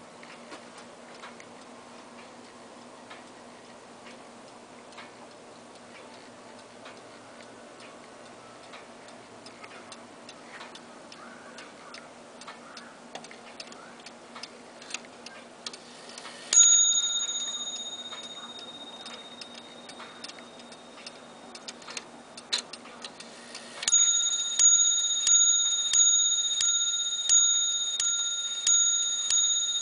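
Early Zenith mantle clock ticking steadily while its hands are turned forward by hand. A little past halfway it sounds a single ringing strike that dies away slowly. Near the end it begins striking the hour, one ringing strike about every three-quarters of a second, still going at the end.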